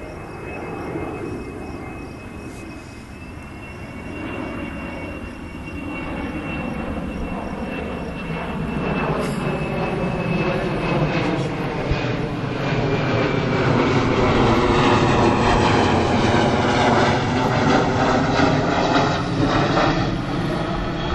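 Airplane engine drone passing overhead. It grows steadily louder, with its pitch slowly bending, and is loudest about three-quarters of the way through before easing slightly.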